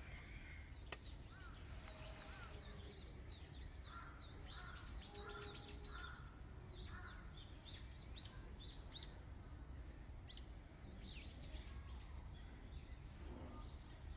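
Birds chirping in quick, repeated high calls, thickest through the middle, over a steady low background rumble.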